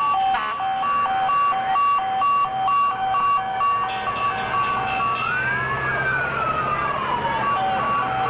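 Emergency-vehicle sirens from passing parade vehicles. A hi-lo siren switches back and forth between two tones, stops about five seconds in and starts again near the end. Wailing sirens sweep up and down in pitch over it.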